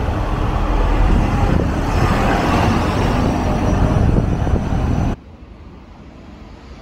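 A hybrid box truck driving past close by, a steady engine rumble with road noise. It cuts off abruptly about five seconds in, leaving a much quieter street background.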